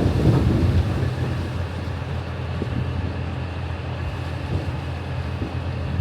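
Heavy diesel harvest machinery running steadily, with a deeper rumble in about the first second that then settles to an even drone.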